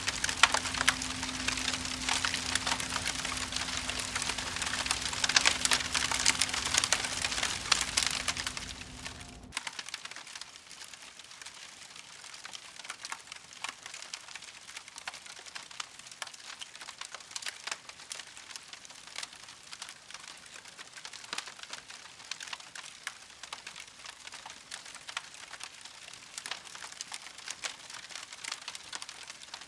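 A fire crackling and popping beside a tabletop grill, with a steady low hum underneath; about nine seconds in it cuts off abruptly to meat sizzling and faintly crackling on the grill.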